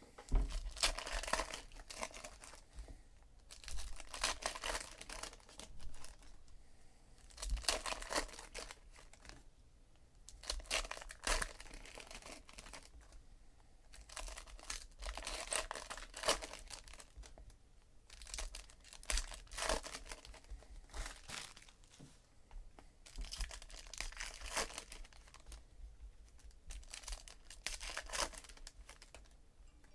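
Foil wrappers of 2017 Panini Donruss Optic baseball card packs being torn open and crinkled by hand, in repeated bursts with short pauses between.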